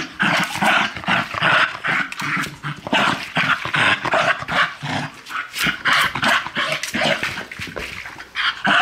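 West Highland white terrier growling in play in quick, irregular bursts while it mouths and tugs a plastic ball toy.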